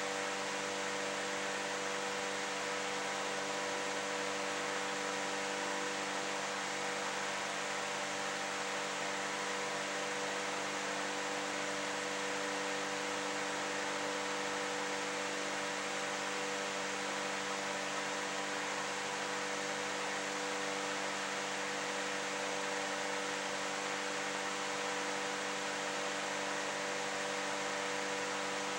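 Steady hiss with a constant electrical hum of several tones, unchanging throughout: the room tone and recorder noise of a quiet, unoccupied room.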